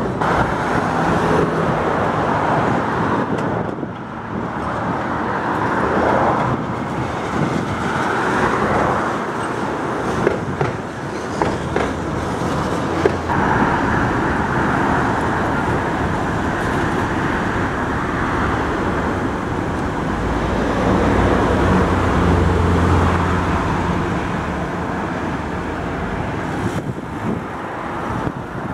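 Steady road traffic on a multi-lane avenue, a wash of tyre and engine noise, mixed with a two-car Tatra T3SU tram train rolling away along its tracks. A deeper vehicle hum swells about twenty seconds in and fades a few seconds later.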